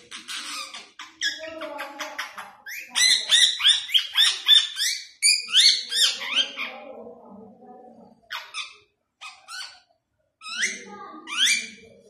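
Indian ringneck parakeet calling. Raspy chatter at the start gives way, about three seconds in, to a fast run of sharp rising calls at about four a second, and a few more single rising calls come near the end.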